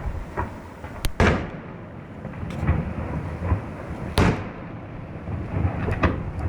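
Fireworks display: a string of shell bursts, each a sharp bang, the loudest about a second in and about four seconds in, over a continuous low rumble.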